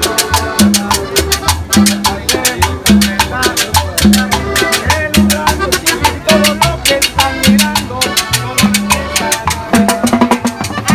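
A live Latin dance band playing salsa-style music, with a steady beat of percussion over a repeating bass line.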